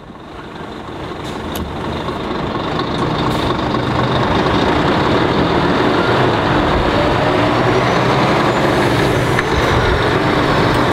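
Diesel engine of a Scania R-series truck hauling a car-transporter trailer, running as it moves off slowly; the sound fades in over the first few seconds.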